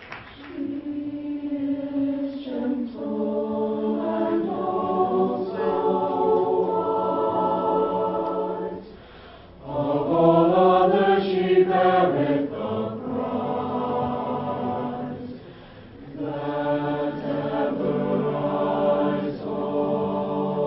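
Mixed-voice school concert choir singing held chords in long phrases, with two short breaks, about nine and fifteen seconds in; the phrase right after the first break is the loudest.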